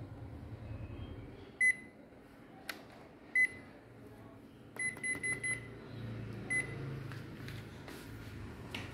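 Ricoh MP 4002/5002 copier's operation panel beeping as its keys are pressed: seven short high beeps, four of them in quick succession about five seconds in. A low steady hum runs underneath.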